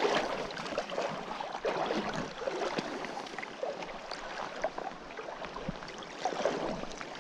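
Shallow river water splashing and gurgling close to the microphone, with many small irregular splashes.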